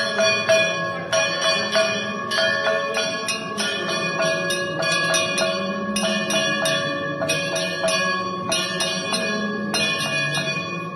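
Temple bell rung rapidly for aarti, about three strikes a second, its ringing tones overlapping into a steady clang.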